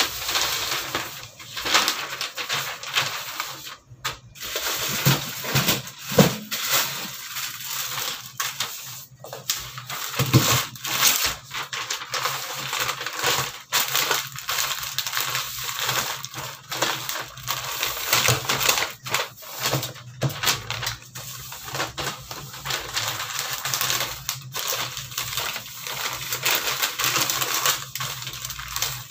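Sheets of newspaper rustling and crinkling as they are folded and pressed by hand around a package, with frequent sharp crackles.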